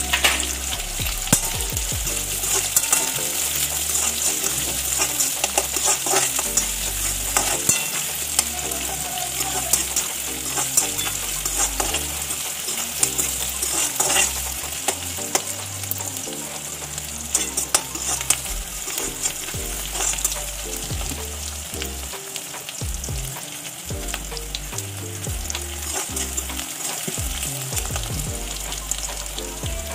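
Chopped onion sizzling steadily in hot oil in a steel kadhai, stirred with a metal slotted spoon that scrapes and clicks against the pan.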